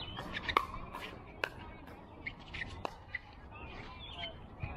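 Pickleball rally at the net: paddles hitting a hard plastic ball, several sharp pops about a second apart.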